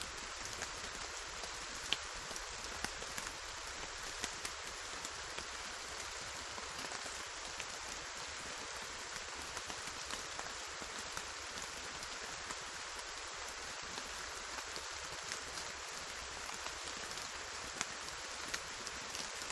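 Steady rainfall: a dense, even hiss of rain on surfaces with many individual drops ticking through it, a few of them sharper and closer. No thunder.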